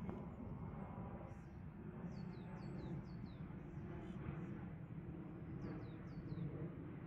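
Small birds chirping in short, quickly falling notes, repeated many times, over a steady low rumble.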